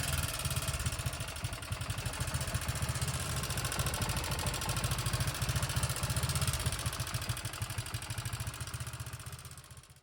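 Honda FTR250's air-cooled single-cylinder engine running with a rapid, even mechanical clatter. The rattle comes from a valve tappet adjusting nut that has come off, leaving the valve clearance wrong. The sound fades out near the end.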